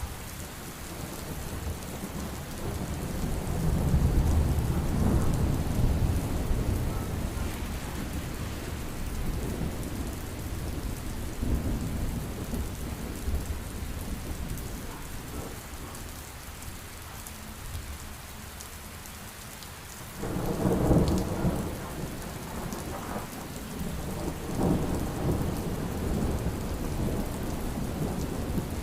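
Steady heavy rain with rolling thunder: a long low rumble swells a few seconds in and fades, then about two-thirds of the way through a louder roll breaks in suddenly and rumbles on.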